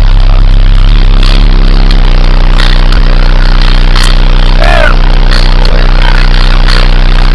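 Two FB Audio 3000 W RMS 15-inch car subwoofers driven by a Taramps 30k amplifier playing a deep, steady bass tone at extreme level, overloading the recording with distortion.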